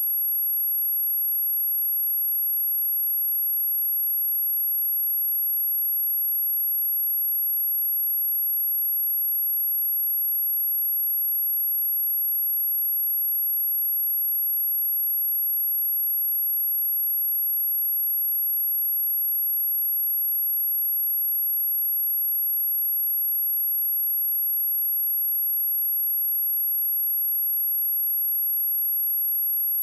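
A steady, high-pitched pure sine tone at 11468 Hz, held at constant pitch and level: a speaker test tone, also used to shake water and dust out of phone speakers.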